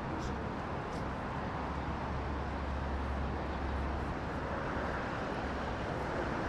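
City street ambience with traffic: a steady wash of road noise, with a low rumble swelling about two seconds in and easing off after about four seconds as a vehicle goes by.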